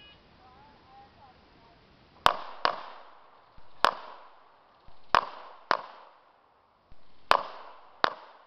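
Seven loud pistol shots in an action-pistol course of fire, mostly fired as quick pairs a third to half a second apart, each trailing off in an echo.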